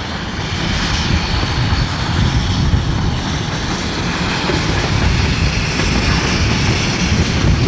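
Steam locomotive A 428 working hard up a grade with a train of carriages, a dense rumbling of exhaust and running gear that grows louder as it nears and passes.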